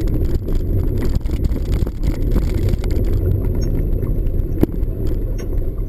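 Mountain bike riding over a rough dirt trail: a steady low rumble with frequent rattles, clicks and knocks from the bike.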